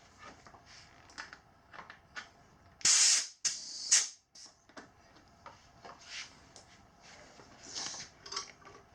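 Compressed air hissing from an air chuck in short bursts as a little air is put into a dirt-bike inner tube, the two loudest bursts about three and four seconds in, with a few fainter hisses and clicks after.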